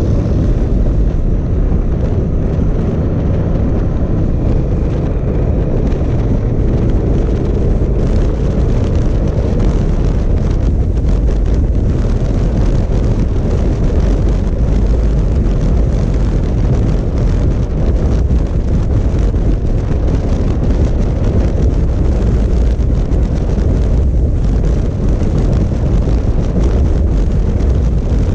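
Wind rushing over the microphone of a camera on a moving 2018 Honda Africa Twin DCT, a steady low rush at road speed. The bike's parallel-twin engine is faintly heard beneath it in the first several seconds, its pitch rising and falling.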